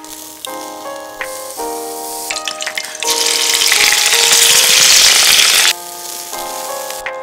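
Seafood and vegetables hitting a hot wok over charcoal and sizzling loudly, starting about three seconds in and cutting off suddenly after about two and a half seconds. Piano music plays throughout.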